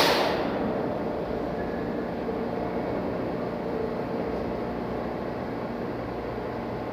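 R160 subway car standing at the platform, its onboard equipment giving a steady low hum and rumble. A loud hiss fades out in the first half second.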